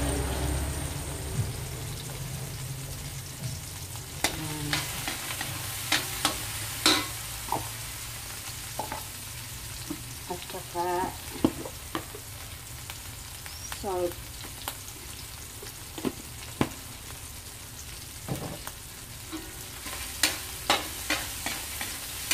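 Tomatoes, garlic, ginger and onion sizzling in a metal wok over a gas flame, with a metal spatula scraping and clinking against the pan as it stirs at irregular moments. The tomatoes are being cooked down until fully soft.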